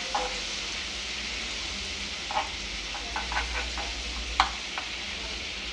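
Butter and refined oil sizzling with a steady hiss as the butter melts in a hot nonstick kadhai over a medium gas flame. A metal spoon stirring it ticks against the pan a few times.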